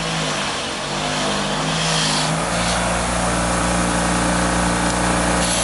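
Bench grinder with a wire wheel running steadily. Its hum drops slightly in pitch and grows heavier about two and a half seconds in.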